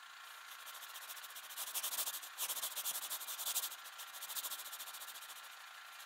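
Seismograph stylus scratching rapidly across paper: a dry, hissing scrape made of many fine quick strokes, louder in the middle and easing off towards the end.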